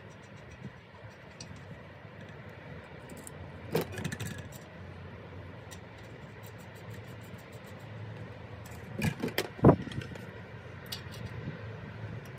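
Small metal clinks and taps of bicycle front-hub parts and a cone spanner being handled on the axle while the hub is reassembled. There are a few sharp clinks about four seconds in and a quick cluster near ten seconds, the loudest of them there, over a steady low hum.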